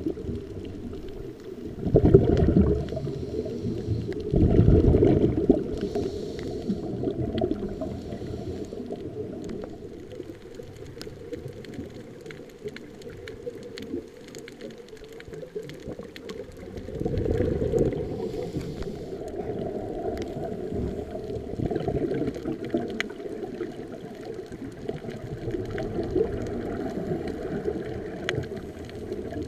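Scuba regulator breathing heard underwater: exhaled air bubbles out in low, muffled bursts a few times, each followed by a fainter hiss of inhaling. Faint scattered clicks run through it.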